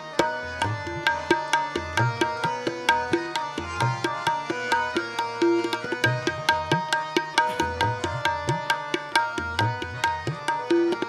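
Instrumental interlude of Sikh kirtan: tabla playing a quick, steady beat, its bass drum's pitch sliding upward on some strokes, under a harmonium holding and changing melody notes.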